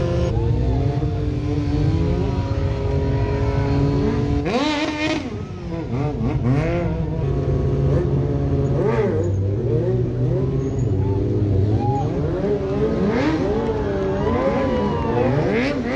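Motorcycle engines revving over and over, their pitch swooping up and down, over a steady low engine rumble.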